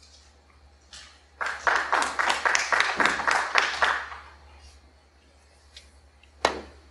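Audience applause for a few seconds. Near the end comes a single sharp click: the cue tip striking the cue ball for the break-off.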